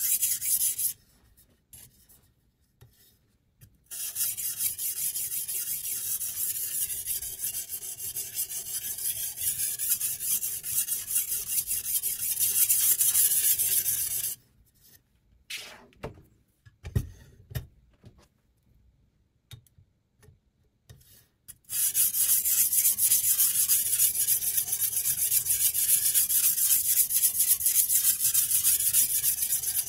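Sharpening stone on the guide rod of a Sytools Beast guided knife sharpener rasping along the steel edge of a chef's knife, in rapid scraping strokes. The strokes come in long runs with two pauses, where the knife clamp is turned over to the other side and a few clicks and a knock are heard.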